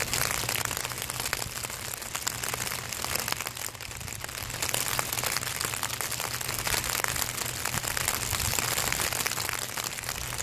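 Steady rain pattering, heard as a continuous crackle of many small drop hits close to the microphone.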